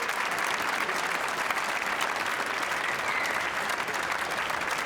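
Arena crowd applauding steadily, sustained clapping at the end of a long squash match.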